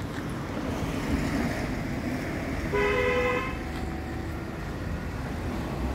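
Road traffic rumbling steadily, with a vehicle horn tooting once, for under a second, about three seconds in.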